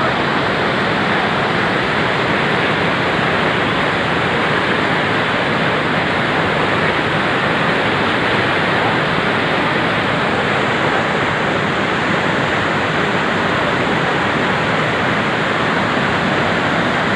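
Parvati river rushing, a steady loud roar of fast-flowing water.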